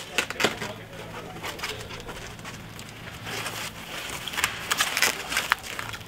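Foam packing wrap rustling and crinkling as it is handled and pulled off a boxed car roof panel, with irregular sharp crackles that grow busier in the second half.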